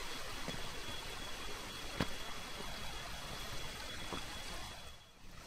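Shallow rocky mountain stream trickling and flowing among boulders, a steady even rush, with a thin steady high tone above it and a single sharp click about two seconds in; the sound drops away briefly near the end.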